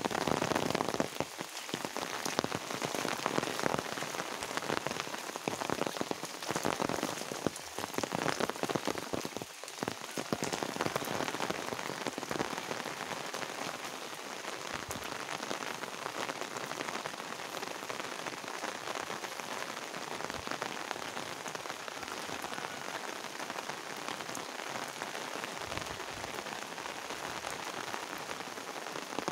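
Steady rain falling, a dense patter of drops on wet paving and foliage; a little louder and more uneven in the first ten seconds or so, then even.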